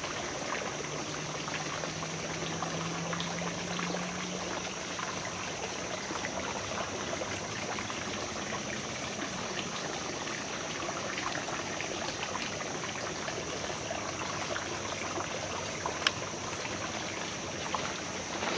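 Creek water trickling and flowing steadily, with a single sharp click near the end.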